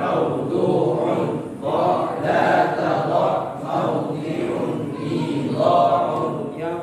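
A group of voices reciting Arabic verb conjugation patterns (tasrif) together in unison, as a chant, phrase after phrase.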